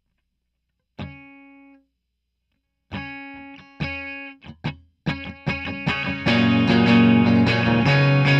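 Electric guitar through effects opening a song. One chord rings out about a second in and dies away, more chords follow from about three seconds, and the playing builds into steady rhythmic strumming that is fuller and louder from about six seconds.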